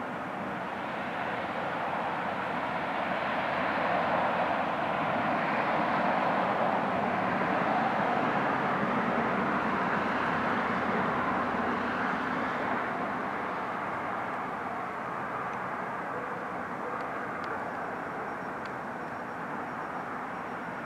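A distant aircraft passing over, a steady rumble that swells for several seconds and then slowly fades.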